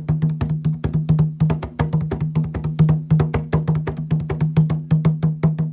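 Samba de roda percussion music: quick, dense wooden clicks at about nine a second over a steady low tone.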